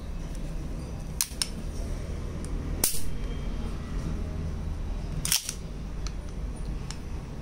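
Sharp metallic clicks from a Springfield Armory 1911-style full-metal blowback CO2 BB pistol being handled, its metal slide and action snapping. There are several separate clicks: the loudest about three seconds in, and a quick double a little after five seconds.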